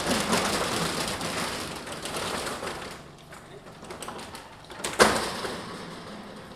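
Steel roller shutter rattling as it is rolled up over a shop doorway, fading after about three seconds, then a single sharp bang about five seconds in.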